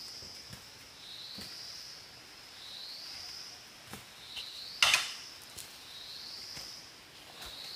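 A high animal call rising in pitch, repeating about every one and a half seconds, over outdoor ambience, with one sharp knock a little before five seconds in.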